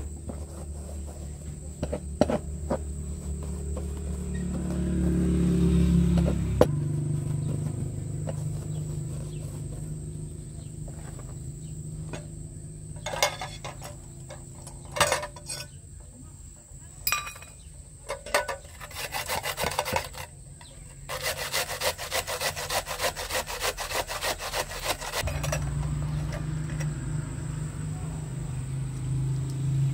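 Scraping and rubbing as ground walnuts are worked against a wooden board, then raw onion grated on a metal box grater: scattered strokes at first, then a quick, even run of grating strokes about two-thirds of the way through. A low hum sits underneath, strongest at the start and the end.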